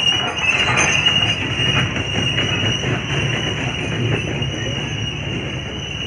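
A park's miniature passenger train running away along its rails, a low rumble with a few knocks early on that slowly fades.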